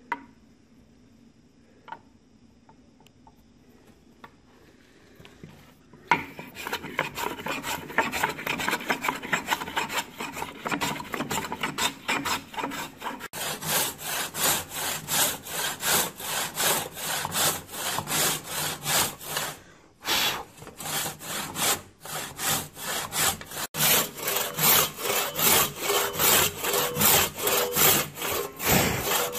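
Hand saw cutting into an oak trunk in steady back-and-forth strokes, starting about six seconds in after a few light knocks, and getting louder and quicker about halfway through.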